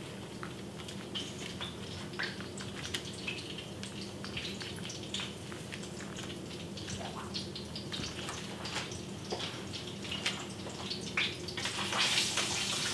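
Floured pork chops frying in hot grease in a pan, with scattered crackling pops of oil. The sizzle swells louder near the end.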